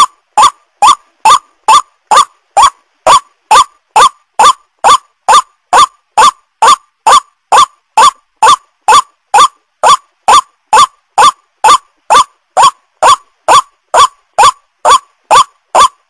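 White-breasted waterhen (ruak-ruak) calling in a loud, unbroken series of short, sharply rising harsh notes, a little over two a second, played as a lure call to draw the birds in.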